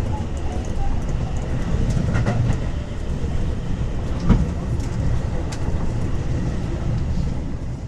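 Inside a moving metro train car: a steady low rumble with scattered sharp knocks and clicks from the running gear, the loudest about four seconds in.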